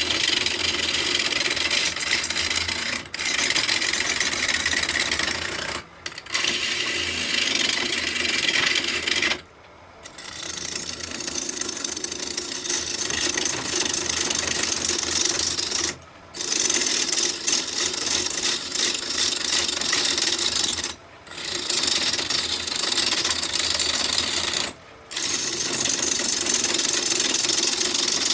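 Bowl gouge cutting a spinning locust blank on a wood lathe, roughing it out: a steady scraping hiss of the cut, broken by several short pauses.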